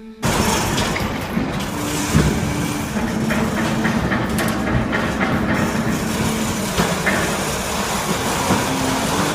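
Garage door moving along its tracks: rollers rattling and clicking over a steady low hum.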